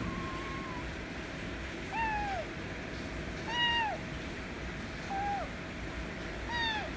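A kitten meowing repeatedly, five short calls that fall in pitch at the end, the loudest about halfway through. The kitten is demanding attention and affection.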